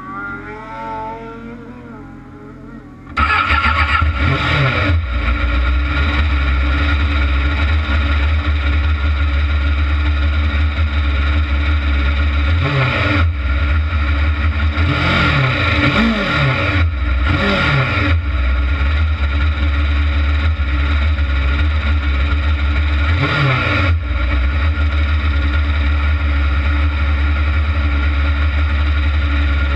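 A kart cross buggy's engine comes on suddenly about three seconds in, then runs loudly at idle with a few short revs, several of them close together around the middle.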